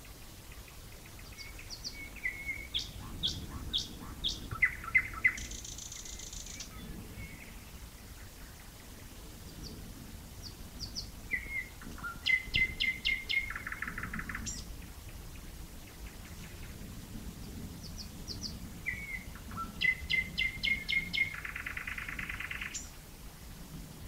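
Nightingale singing: three separate song phrases, each a run of quick repeated notes ending in a rapid buzzing trill, with pauses of several seconds between them.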